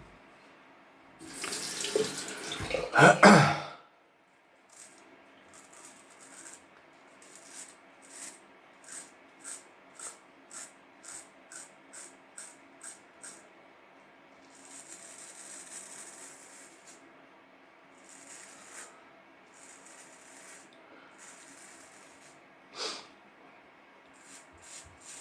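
Water splashes loudly for a couple of seconds. Then a Wilkinson Pall Mall razor scrapes through stubble in short, regular strokes, about one and a half a second, and a few more strokes come later.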